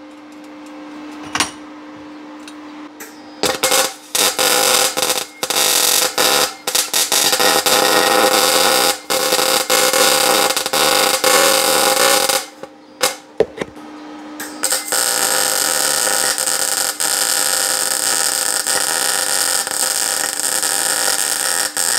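Electric arc welding on a thin-walled ATV exhaust pipe: loud crackling, buzzing arc in short stop-start spells, then one long continuous weld from about fifteen seconds in. A steady hum plays in the pauses between the welds.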